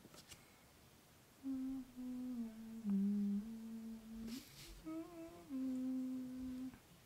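A voice humming a slow, wordless tune in long held notes that step up and down, starting about a second and a half in and stopping near the end, with a short breathy hiss in a pause about four seconds in.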